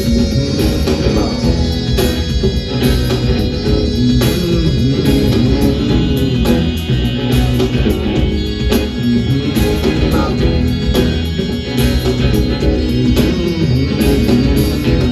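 Live rock band playing an instrumental break of a song, with guitar, bass lines and a steady drum beat and no singing.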